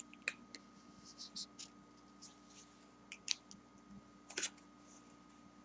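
Faint, scattered scratches and clicks of a thick felt-tip marker on paper: a few short strokes and taps as the tail is finished, then the pen lifted away.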